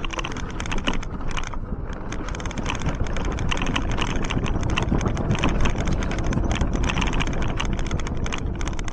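A small open off-road vehicle driving over rough ground: a steady low rumble with constant irregular rattling and knocking as it jolts along, and wind buffeting the microphone.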